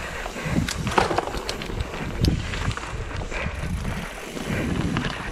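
Mountain bike rolling down a dirt trail: tyres running over dirt and roots, with the bike rattling and knocking irregularly over bumps above a steady low rumble.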